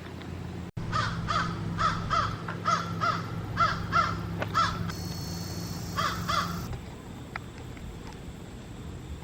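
A bird calling: a quick run of about ten calls, roughly two or three a second, then a short burst of three more a little later.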